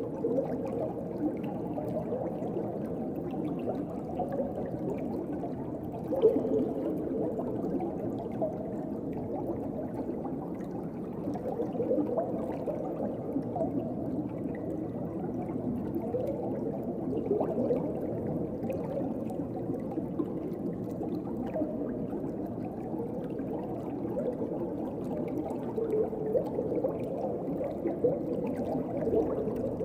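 Underwater ocean ambience: a steady, muffled wash of moving water with a shifting, bubbly texture, swelling slightly about six seconds in.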